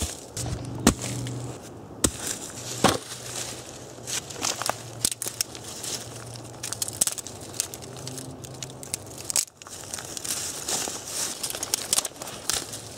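Dry twigs and sticks crackling and snapping as they are gathered and handled, with crunching on dry pine needles and dead leaves underfoot; the crackles come irregularly.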